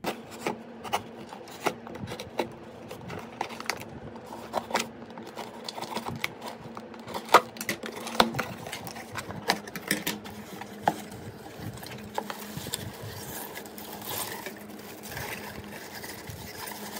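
A cardboard shipping box being handled and opened by hand, with many sharp taps and knocks on the cardboard, then a rustling crinkle near the end as honeycomb kraft-paper wrapping is pulled apart.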